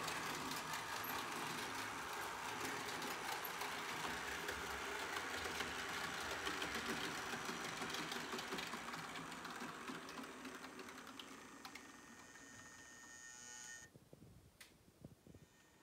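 Model BLS RBDe 4/4 train running along the layout track: a steady rolling rattle of the wheels with fine clicks and the hum of its motor. It fades out over the last few seconds and drops away sharply near the end.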